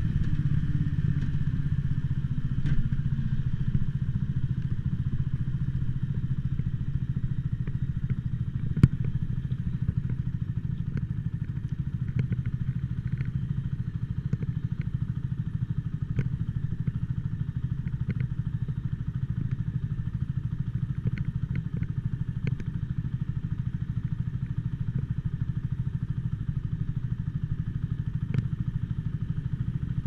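Mutt Akita motorcycle engine, its revs falling over the first few seconds and then running steadily at low revs. Scattered crackling clicks run through the recording, the loudest about nine seconds in.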